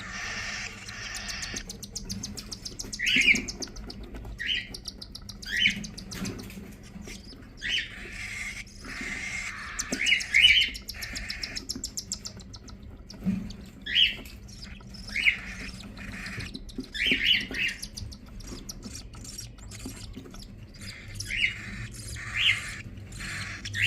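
Cockatiel chicks being fed by their parents: repeated short, sharp chirps mixed with raspy, hissing begging calls.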